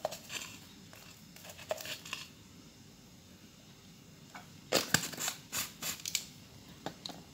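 Spice shaker of garlic powder shaken over a bowl, giving short bursts of rattling and sprinkling: a few near the start, then a run of quick shakes about five to six seconds in.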